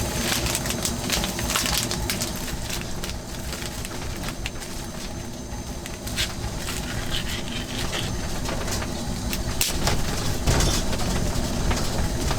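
Strong wind buffeting the microphone in a steady low rumble, with irregular crackling and crinkling handling noises throughout.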